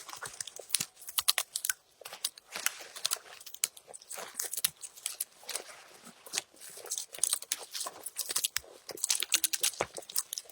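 Irregular crunching, crinkling and tearing sounds of kindling being prepared by hand to light a wood stove.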